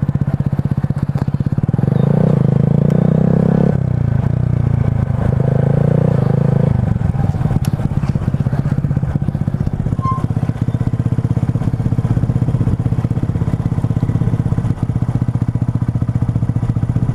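Honda Grom's 125 cc single-cylinder engine rides on the throttle, revving up twice in the first seven seconds. It then settles to a steady idle.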